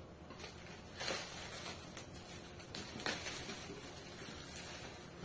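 Clear plastic wrapping rustling and crinkling as it is pulled off a new cooking pan, in several short spells of crackle.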